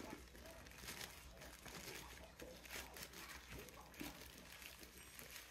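Black plastic poly mailer bag crinkling faintly and irregularly as hands rummage in it and pull out a small white box.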